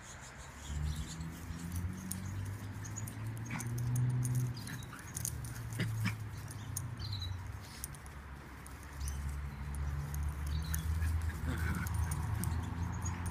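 Dogs growling low during rough play, in two long stretches, with scattered light clicks.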